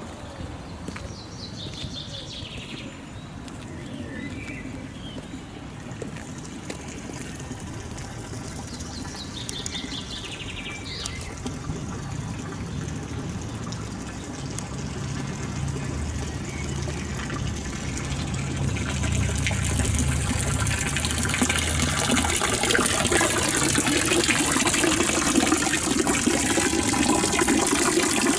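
Running water, growing steadily louder over the second half as it is approached. A few birds chirp in short falling calls in the first half, and there is a low rumble in the middle.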